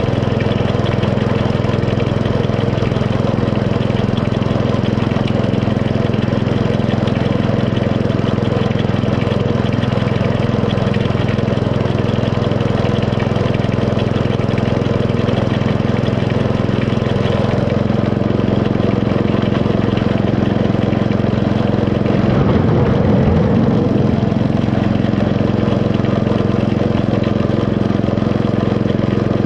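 Small internal-combustion engine of a 7¼-inch gauge miniature railway locomotive running steadily as it hauls the train, with a brief swell in the rumble a little over two-thirds of the way through.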